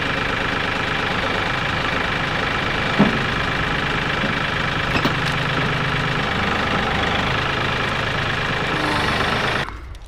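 Compact loader tractor's engine running steadily, with one short knock about three seconds in; the engine sound cuts off abruptly near the end.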